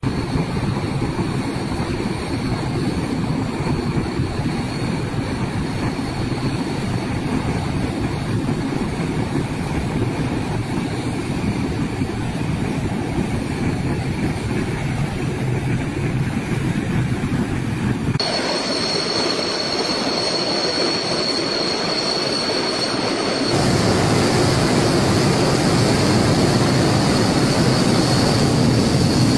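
Four-engine turboprop amphibious aircraft (AG600) running its engines while taxiing: steady loud propeller and engine noise with a thin high whine. The sound changes abruptly twice, about two-thirds of the way through and again shortly after.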